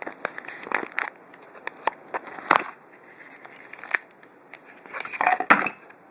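A small product package being opened by hand: irregular crinkling, tearing and clicking of the packaging and its cardboard, with a couple of sharper clicks.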